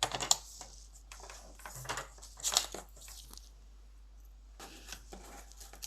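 A sheet of vellum paper being handled and cut into strips: several short bursts of crinkling and cutting.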